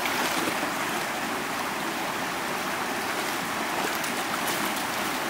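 Shallow, rocky river running fast over stones: a steady rush of water.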